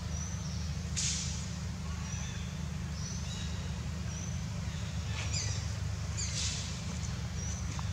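Outdoor ambience: a steady low rumble with birds chirping faintly in short high notes every second or so, and a few brief hissing bursts about a second in and again near the five- and six-and-a-half-second marks.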